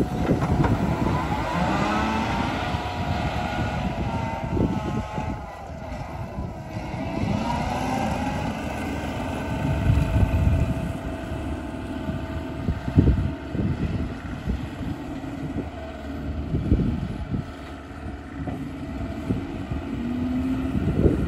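John Deere 333E compact track loader's diesel engine running as the machine drives off, its engine note rising and falling. Wind buffets the microphone.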